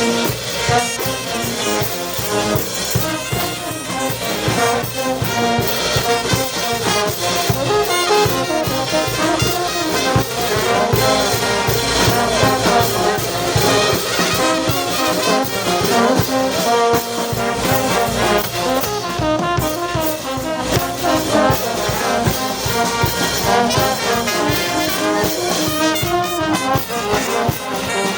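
A brass band playing a lively tune, with trumpets and trombones carrying the melody over a steady beat.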